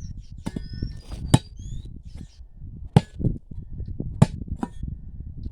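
Small hoe with an iron, axe-bladed head chopping into root-filled ground: a series of sharp, irregularly spaced blows, the strongest about a second or more apart.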